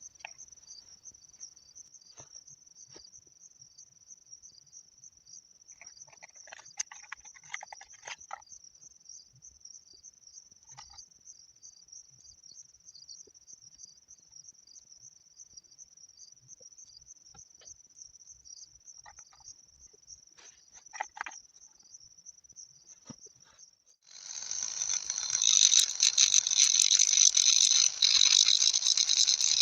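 Crickets chirring steadily in a high, fluttering tone, with scattered faint clicks. Near the end a loud, harsh rattling noise starts suddenly and drowns them out.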